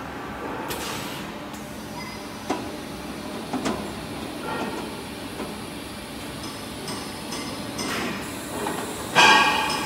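Foundry mold handling and conveying line running, a steady machine noise with scattered metallic clanks and one loud ringing clang of steel near the end.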